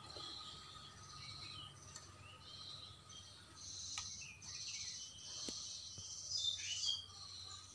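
Birds chirping and calling, a busy run of high calls that is loudest about six to seven seconds in, over a faint steady high tone; two faint clicks in the middle.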